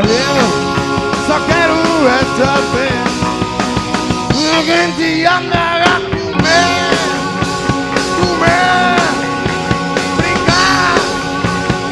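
Live rock band playing loudly: drums keeping time under a lead line that bends up and down in pitch.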